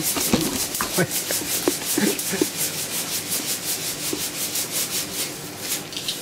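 Coffee beans being shaken in a hand-held mesh roaster over a gas flame: a steady rhythmic rattling hiss, about four strokes a second, from the beans sliding back and forth against the metal mesh during a dark roast past second crack. A few sharp clicks and knocks come in the first two seconds or so.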